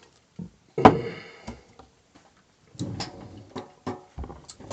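Handling noises: a sharp knock about a second in with a short ring after it, then a few softer clicks and rustles.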